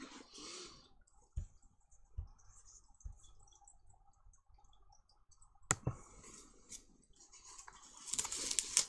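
Faint desk-handling sounds: a few soft knocks, scattered light ticks, a sharp click past the middle and a short burst of rustling near the end.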